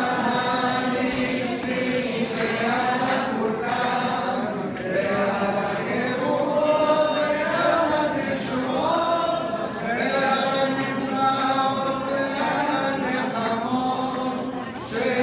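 A group of voices singing a chanted Hanukkah candle-lighting song together as the menorah candles are lit.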